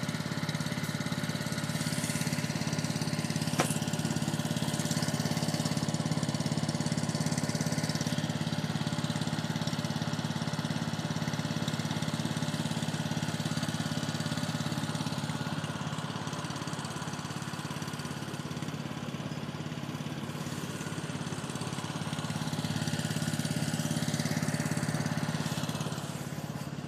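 Heavy diesel engine running steadily, with one sharp click about three and a half seconds in.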